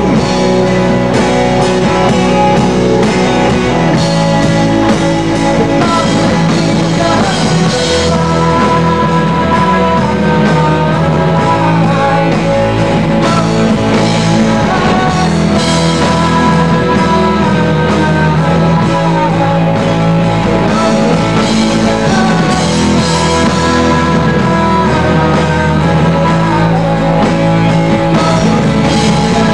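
Live rock band playing: electric guitars, bass guitar and drum kit, with a lead guitar line winding over a steady low end.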